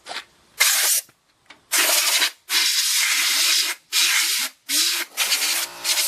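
About seven short hissing blasts of compressed air, blowing dust out of a computer's case.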